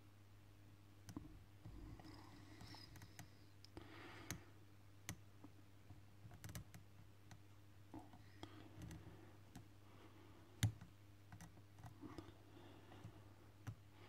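Faint, irregular small metallic clicks and ticks from a hook pick working the pin stack of a First Watch padlock under tension from a tension wrench, as the picker probes for the binding pin. One click about two-thirds of the way through is louder than the rest.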